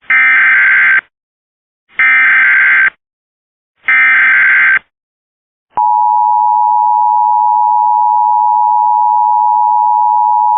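Emergency Alert System SAME header: three one-second bursts of digital data tones about a second apart. They are followed, about six seconds in, by the steady two-tone EAS attention signal.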